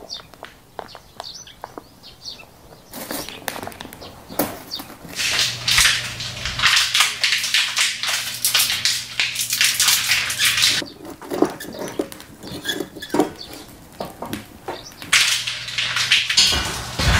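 Handling noise of food being set out on a foil-covered tabletop grill: crinkling plastic packaging and aluminium foil, with clicks of metal tongs. A few light clicks come first, then loud bursts of crinkling in the middle and again near the end.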